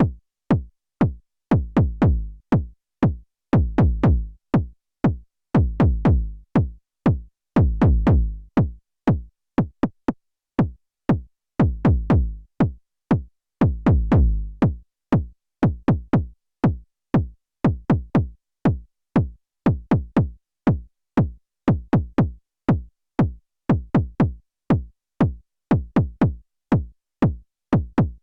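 KORG Volca Kick analog kick synthesizer playing a sequenced pattern of short, punchy kick hits, about three a second. In the first half, longer, deeper bass notes sound about every two seconds; after that only the short kicks carry on.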